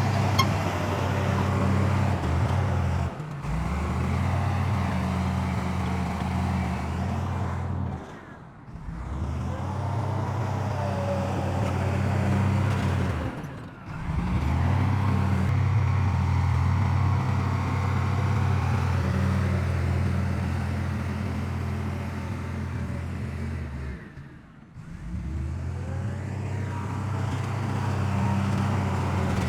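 Heavy diesel engine of earthmoving machinery running with a steady low drone. The sound breaks off briefly four times (about 3, 8, 14 and 25 seconds in) and picks up again.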